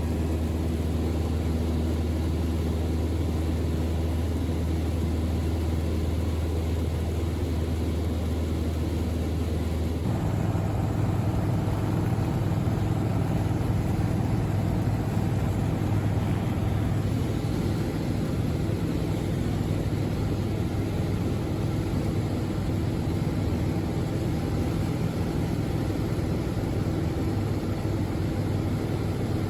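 Steady engine drone throughout, its hum shifting to a different, slightly higher pitch about ten seconds in.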